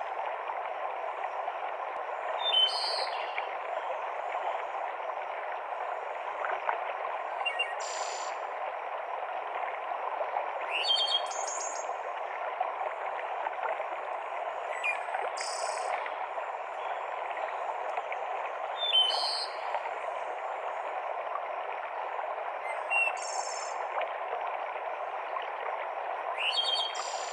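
A mountain stream cascading in a steady rush of water. Short, high bird calls break in roughly every four seconds, seven times in all.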